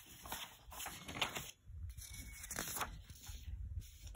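Sheets of printer paper rustling and sliding as a printed page is flipped aside to bring up the next one, in several short bursts of crinkling noise.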